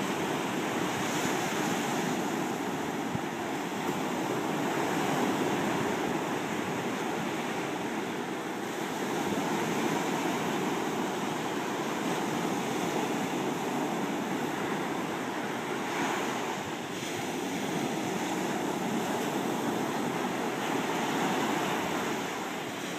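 Small ocean waves breaking and washing up over a sandy shore: a steady rushing wash that swells and eases slowly as each wave comes in.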